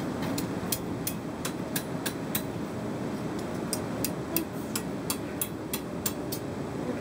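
Light metal-on-metal taps at a blacksmith's anvil, about three a second in two runs, over the steady rush of the coal forge's air blower.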